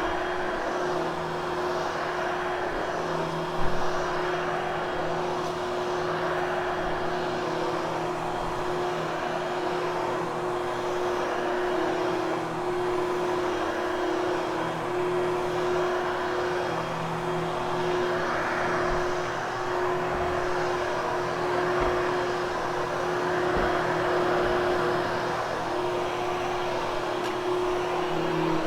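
Vacuum cleaner running steadily with a constant motor hum and airflow rush while post-vacuuming a freshly cleaned, dry carpet, with one brief knock a few seconds in.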